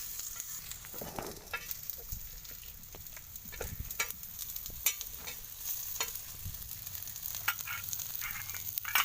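Food frying and sizzling in a pan while it is stirred, the spatula scraping and clicking against the pan every so often, with one sharp knock near the end.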